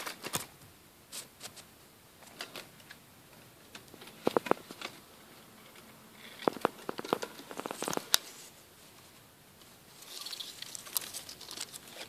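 Rustling and crackling of terrarium plants and dry leaf litter, in short clusters of sharp clicks and crinkles with quieter gaps between them.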